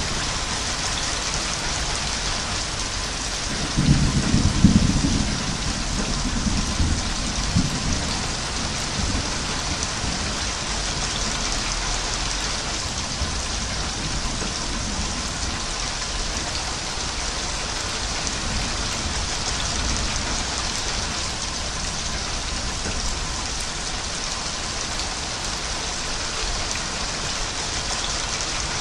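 Steady heavy rain falling, an even hiss, with a low rumble of thunder swelling about four seconds in and fading out over the next few seconds.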